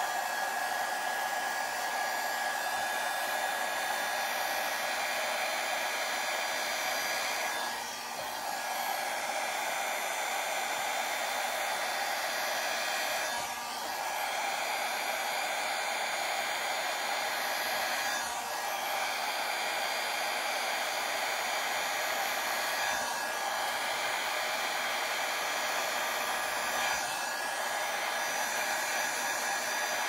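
Hair dryer running steadily, blowing air across wet acrylic paint: an even rush of air with a steady tone in it, dipping slightly for a moment every few seconds.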